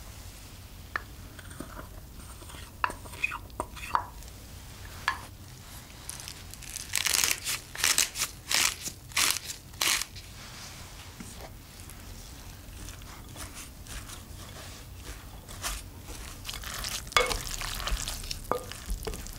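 Food-prep handling sounds over a glass bowl of shredded raw potato: a few light clicks and taps, then a run of short crunchy bursts around the middle as cornstarch and black pepper go in. Near the end comes a wooden spoon stirring the starch-coated shreds against the glass.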